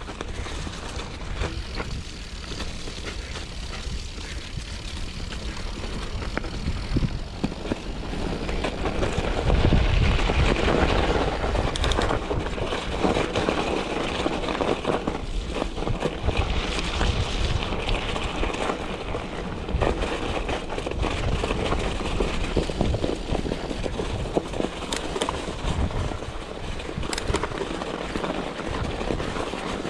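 Mountain bike riding along snowy, muddy singletrack: steady rolling and rattling noise with a low rumble, broken by occasional sharp knocks, and louder for a few seconds about ten seconds in.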